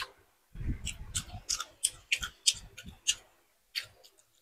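Close-up eating sounds of spicy noodle soup: sipping broth from a spoon and chewing, heard as a quick series of wet mouth clicks and smacks.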